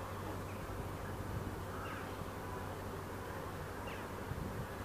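A few faint short bird calls, about two seconds in and again near four seconds, over a steady low hum and a haze of outdoor noise.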